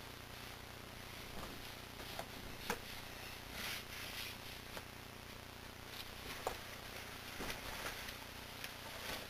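Faint rustling of clothing as a T-shirt and then jeans are pulled on, with a few short sharp clicks and soft knocks over a low steady hum.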